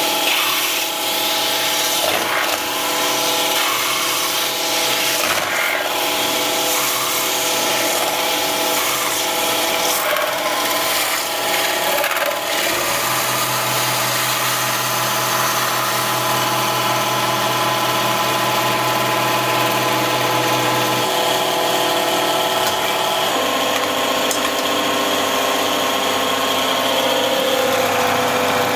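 Metal-spinning lathe running, its roller tool pressing and rubbing along a spinning sheet-metal cone on the mandrel: a steady machine hum with a scraping, rubbing hiss. A deeper hum joins about halfway through and drops out again, and the pitch of the hum changes near the end.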